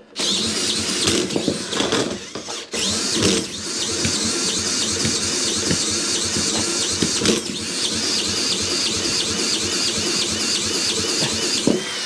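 Cordless drill spinning over a Mountfield lawnmower's petrol engine by its flywheel nut, the engine cranking fast and steadily against compression. It falters briefly about three seconds in. The engine is failing to start, though the owner thinks it has started to fire.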